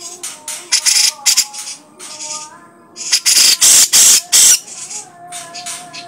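Grey-cheeked bulbul (cucak jenggot) calling: short whistled notes mixed with loud, harsh, rasping bursts. A first group of rasps comes about a second in, and a louder run follows about three seconds in.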